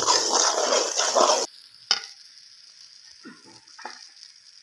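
Metal spoon stirring and scraping a thick carrot-and-semolina barfi mixture round a karahi while the ghee sizzles; the ghee has begun to separate from the pan, a sign the barfi is almost done. The stirring cuts off suddenly about a second and a half in, leaving quiet with one sharp click and a few faint taps.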